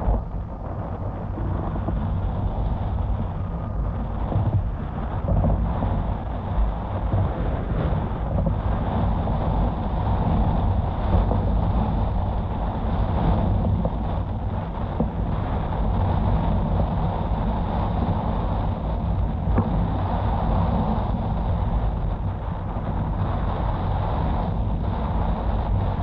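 Steady wind rumble on the microphone over rushing water as a windfoil board rides across the bay, fluttering a little in loudness throughout.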